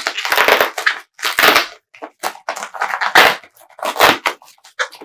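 Packing material in a shipping box being pulled out and crumpled by hand: a run of loud crinkling, crunching bursts, one after another.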